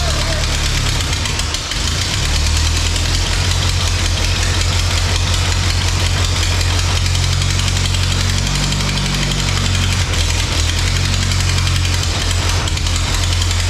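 Ford 8N tractor's four-cylinder flathead engine running steadily, with a brief dip about a second and a half in and a shift in its pitch around eight to nine seconds. The exhaust is leaking at the pipe.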